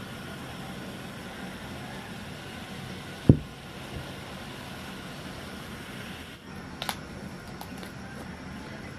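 Steady low hum of room background, broken by one sharp thump about a third of the way in and a couple of faint clicks later on.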